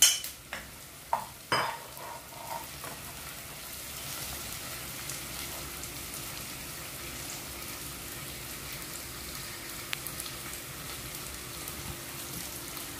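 Onion, garlic and julienned ginger sizzling in hot oil in a pot, a steady frying hiss. In the first couple of seconds a metal spoon clinks sharply a few times against the plate and pot as the ginger is scraped in.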